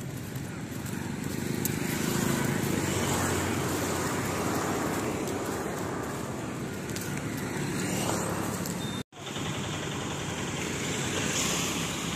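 Roadside traffic noise: motor vehicles run past with a steady street hiss, swelling about two seconds in. The sound breaks off for an instant about nine seconds in, then the street noise resumes.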